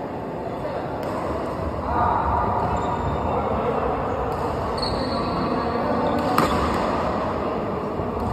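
Steady rumbling background noise in a large hall during a badminton rally, with one sharp smack about six seconds in that fits a racket hitting the shuttlecock.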